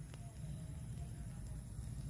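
Campfire burning with a steady low rumble and a single sharp crackle shortly after the start, with faint wavering tones in the background.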